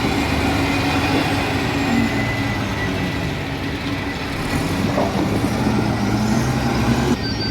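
Heavy diesel engine of earthmoving machinery running steadily under load, its pitch shifting slightly, with a thin high whine and a single knock about five seconds in.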